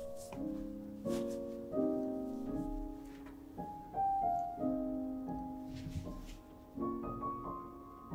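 Piano music, a new chord struck roughly every second.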